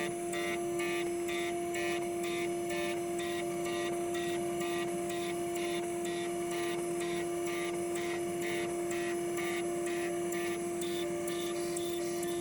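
CNC milling machine cutting a keyway: a steady spindle whine with a regular pulsing from the cut, about two to three pulses a second.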